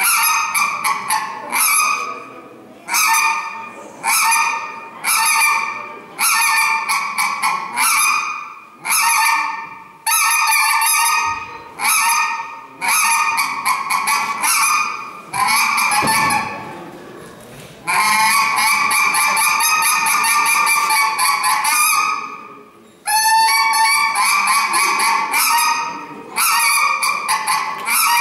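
Goose honks, blown on a goose call: a series of honks about one a second, then an unbroken run of calling for about four seconds after the middle, a brief pause, and more honks near the end.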